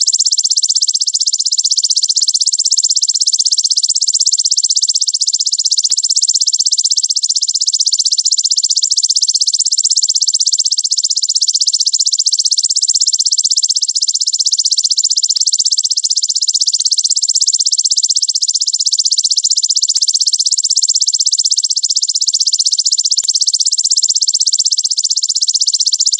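Belalang raja insect calling: a fast, tightly packed, high-pitched trill that runs on without a break.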